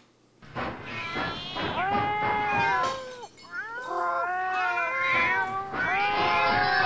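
Several cats yowling at once, long wavering cries overlapping one another. They start about half a second in and break off briefly near the middle before starting again.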